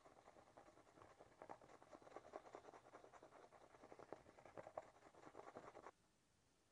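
Faint rapid scraping of a small stick mixing two-part JB Weld epoxy on a plastic cutting board; the scraping stops abruptly near the end.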